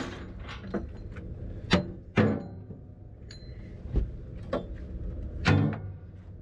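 Scattered metallic knocks and clanks, some briefly ringing, as steel parts and tools are handled inside a wood grinder's screen housing while its new screen is fitted. The loudest come about two seconds in and near the end.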